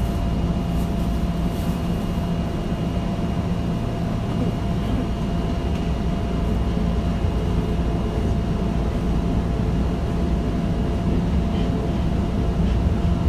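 Running noise of a Tokyo Metro 2000-series train on the Marunouchi Line, heard from on board: a steady rumble of wheels on rail with a few thin steady whines above it.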